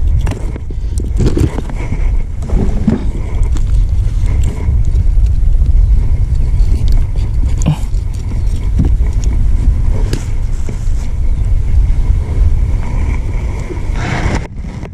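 Wind buffeting the microphone, a loud, steady low rumble, with scattered clicks and knocks from handling a landed bass and a fish lip-grip tool.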